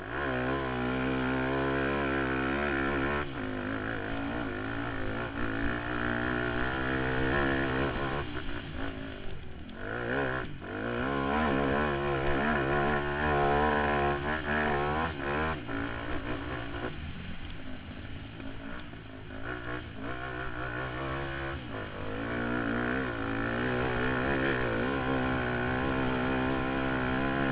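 Suzuki LT-Z400 quad's single-cylinder four-stroke engine ridden hard around a dirt motocross track, its revs rising and falling constantly with the throttle and gear changes. The engine eases off about a third of the way in and again past halfway, then pulls hard again.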